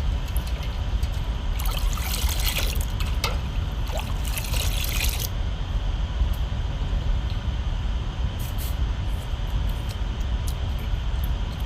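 Pani puri spice water splashing as it is poured and mixed in a large pot, in two louder bursts about two and four and a half seconds in, over a steady low rumble.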